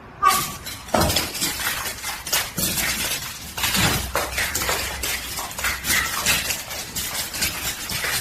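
Continuous clattering and crashing: many sharp impacts in quick succession, with a sound like glass or crockery breaking.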